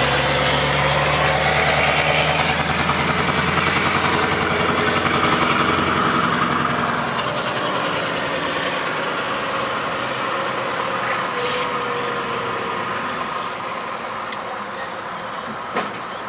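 Scania V8 diesel truck engine with a straight-piped exhaust, heard from inside the cab. It runs strongly under load, then drops to a quieter run about seven seconds in. A short sharp click comes near the end.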